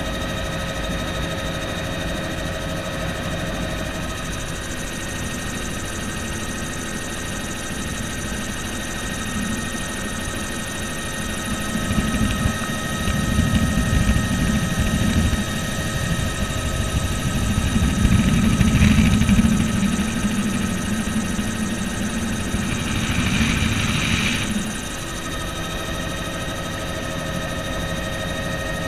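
Bell helicopter in flight, heard from inside the cabin: a steady engine and rotor drone with several constant high whining tones. About twelve seconds in it grows louder and rougher with a low rumble for about thirteen seconds, then settles back to the steady drone.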